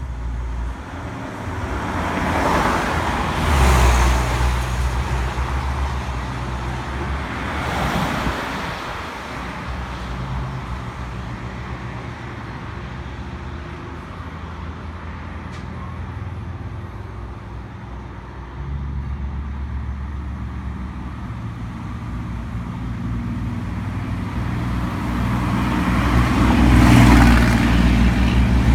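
Road traffic: a motor vehicle's engine runs with a low, steady hum, while other vehicles swell past three times.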